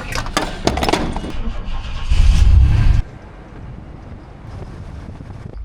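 Van driving over a rough, bumpy road: knocks and rattles, then a loud low rumble, after which the sound drops abruptly to a quieter steady running noise about three seconds in.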